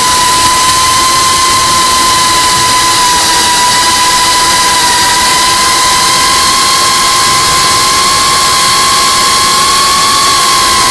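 Motors and propellers of an iFlight Cinelog35 FPV cinewhoop drone in flight: a steady high whine that wavers slightly in pitch, over a constant hiss.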